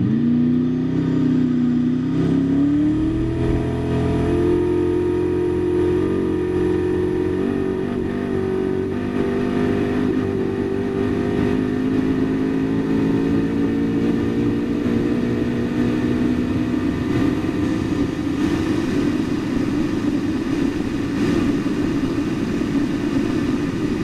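Koenigsegg Regera's twin-turbo V8 hybrid powertrain under full-throttle acceleration from a standstill. Its note climbs quickly for the first few seconds, then rises slowly and evenly with no gear changes, as the car's single-ratio direct drive has no gearbox.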